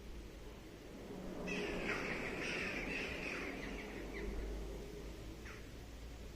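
A long, harsh, raspy screech of about two and a half seconds, seeming to come from overhead, then a brief short call about a second later.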